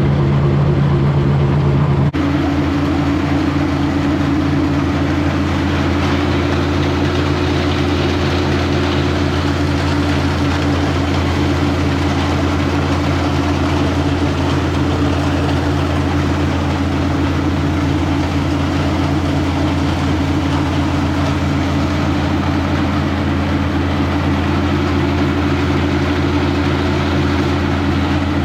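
International 1256 tractor's diesel engine running steadily under PTO load, driving a grinder-mixer and its small auger unloading feed into a bin. The engine tone shifts abruptly about two seconds in, then holds steady.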